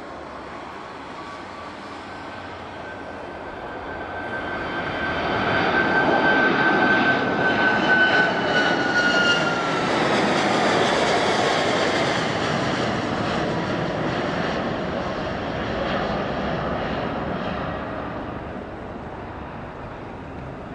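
Airliner engines at takeoff power passing close by: the sound swells, is loudest for several seconds, then fades. A high engine whine drops in pitch as the aircraft goes past.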